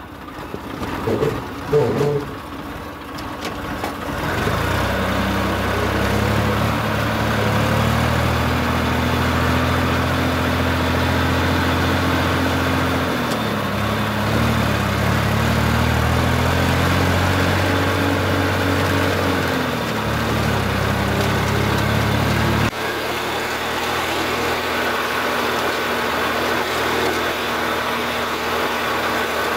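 Farm tractor's diesel engine running as it drives along, heard from the driver's seat. Its pitch dips about 13 seconds in and climbs back, and about 23 seconds in the sound changes abruptly to a thinner, steadier hum.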